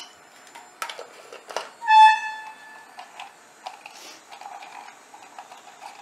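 Light taps about one and one-and-a-half seconds in. Then a single short pitched note about two seconds in, held about half a second. Faint scattered crackling follows as whole cardamom pods and cinnamon sit in hot mustard oil in a kadhai.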